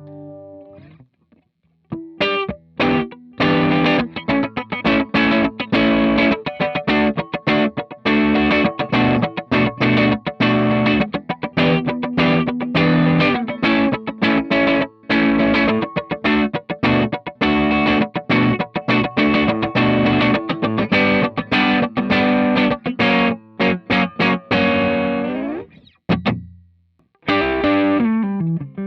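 Electric guitar played through a Cort x Moollon CMV15 amp with a distorted tone: a quick run of picked notes and chords, ending on a chord left to ring out and fade, then a few more notes near the end.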